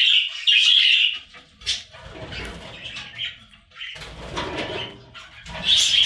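Budgerigar chattering in quick high chirps during the first second and again near the end, with quieter low rustling between.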